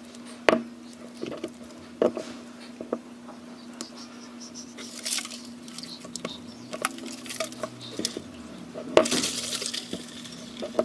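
Scattered taps and clinks of a utensil against a container, with a few short rustling bursts, over a steady low hum.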